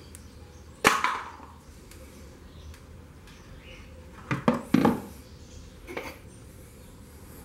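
A small electric fan motor is handled and set down on a hard plastic stool. A sharp knock with a short ring comes about a second in, then a quick run of clunks in the middle and a light tap near the end.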